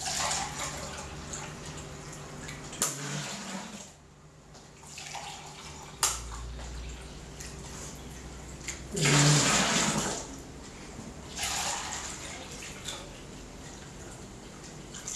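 Water being poured into a container in several splashing bursts, the longest and loudest about nine seconds in, as water is measured out by the jugful.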